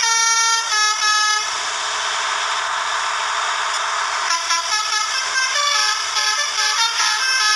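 Telolet multi-tone air horn played manually, sounding a quick melody of short notes that change pitch every few tenths of a second. About a second and a half in the notes give way to a loud rushing noise for roughly three seconds, then the melody of short horn notes starts again.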